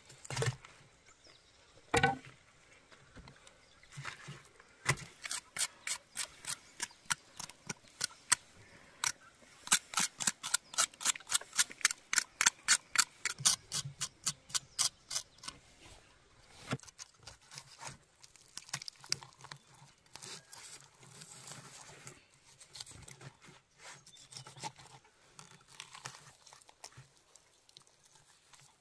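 A knife cutting through the crisp skin of a whole grilled chicken: a fast, even run of sharp crunching strokes, about four or five a second, after a single knock about two seconds in. The strokes die away, leaving quieter tearing and rubbing as the meat is pulled apart by hand.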